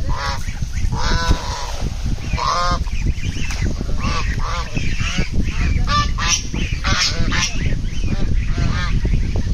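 Waterfowl honking: many short honking calls in quick succession, over a steady low rumble.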